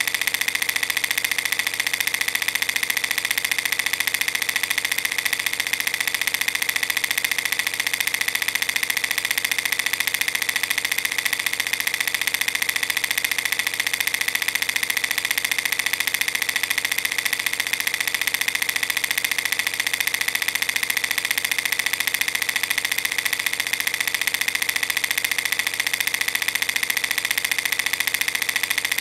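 Movie film projector running: a steady, fast mechanical rattle of film being pulled through the gate.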